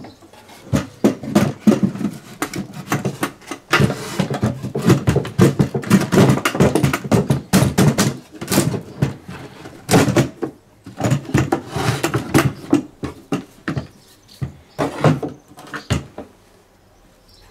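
Loose wooden panels knocking, clattering and scraping against an old wooden case as they are handled and pulled out, a busy run of knocks and scrapes that stops about a second before the end.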